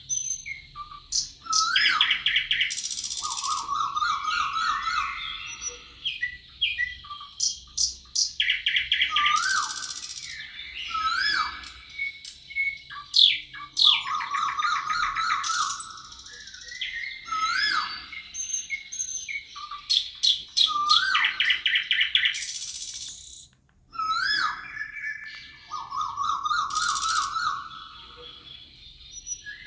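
Songbirds singing in a forest: the same phrase of rising hooked notes, fast trills and high buzzy notes comes back about every six seconds, with other chirps in between.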